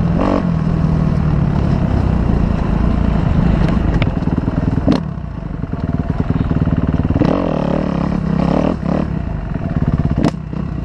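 Motocross dirt bike engine running hard under throttle while riding a dirt track. About five seconds in the throttle eases and the engine drops, then it revs up again for a while, with a few sharp knocks along the way.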